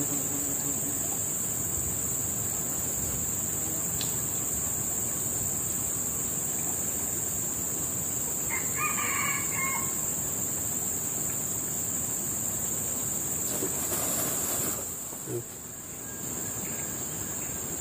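A male red junglefowl crows once about nine seconds in, a short broken call of roughly a second and a half. A steady high-pitched drone runs behind it.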